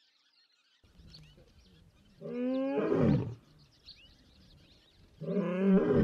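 Male African lion roaring: two long, deep roars about three seconds apart, the second near the end.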